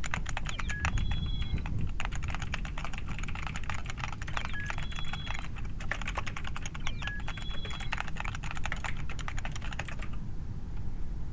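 Mechanical keyboard with white switches being typed on rapidly, a dense run of key clicks that thins out to a few scattered presses near the end.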